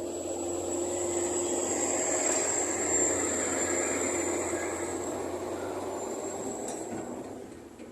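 A vehicle's motor running with a steady high whine over a rumbling mechanical noise. It grows louder to a peak about three seconds in, then fades near the end.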